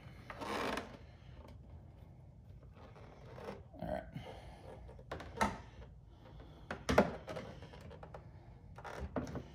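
Quiet handling sounds of a carbon fiber rear diffuser being positioned under a car's rear bumper: a short rustle near the start, then a few scattered light knocks.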